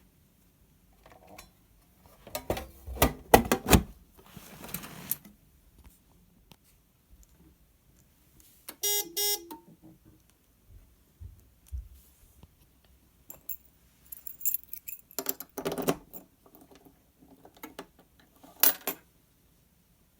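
Bursts of clicking and rattling, then a short electronic beep from the Everspring HA-28 alarm panel about nine seconds in, followed by more clicks.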